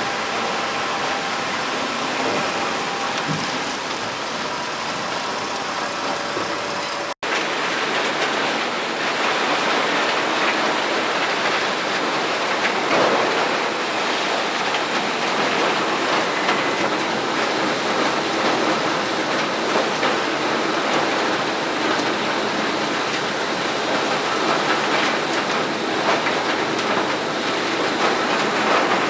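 WSM Model 5472BHCP horizontal grinder running under load on biomass feedstock: a loud, steady, dense grinding and clattering. The sound cuts out for an instant about seven seconds in, then carries on as before.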